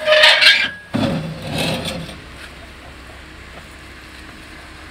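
2020 Jeep Gladiator Rubicon crawling over boulders: a short loud burst of noise at the start, a brief engine rev about a second in, then the engine running low and steady.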